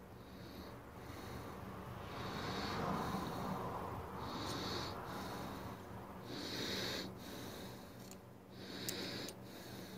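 A person breathing through the nose close to the microphone, one breath about every two seconds. Under it a low rumble swells and fades about two to five seconds in.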